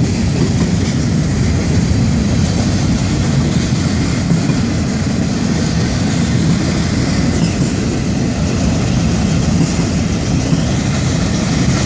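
Freight cars of a Florida East Coast Railway train rolling past: a steady rumble of steel wheels on the rails.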